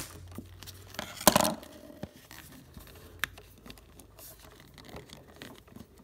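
Plastic sheath of a refrigerator door's wire harness being cut open with a sharp-tipped tool. There is a short, loud rasp a little over a second in, a sharp click near the middle, then faint scratching.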